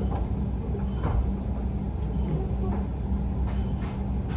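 Interior running noise of a Hokuriku Shinkansen bullet train slowing into a station: a steady low rumble with a constant hum and a few faint ticks from the running gear.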